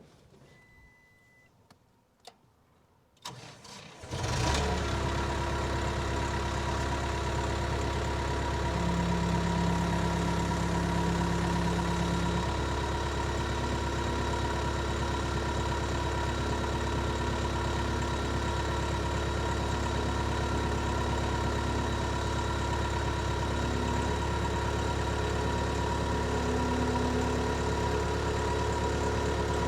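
A couple of light clicks in quiet, then about four seconds in the 1999 Case 430 skid steer's engine starts and settles into a steady idle.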